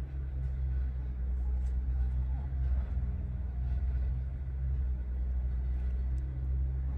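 Steady low rumble of a running vehicle, with faint small clicks and knocks over it.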